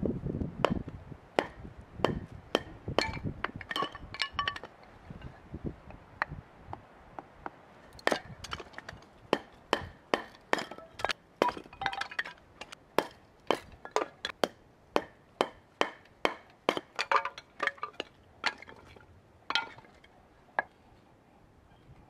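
A broad knife blade being batoned with a wooden stick to split kindling on a wooden stump: sharp knocks, each with a short metallic ring. A run of strikes comes in the first few seconds, then a steady run of about two a second from about eight seconds in until near the end.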